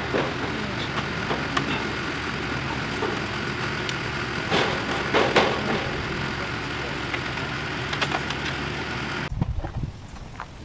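Steady engine-like drone with a few sharp knocks. It cuts off abruptly about nine seconds in, leaving quieter outdoor sound with some low thumps.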